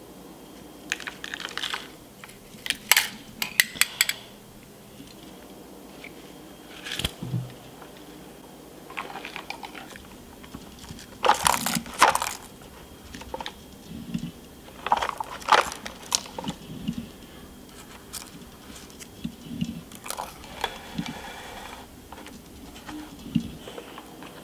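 Hard plastic toy garbage truck and toy dumpster being handled: scattered clicks, knocks and rattles of plastic parts, in irregular clusters.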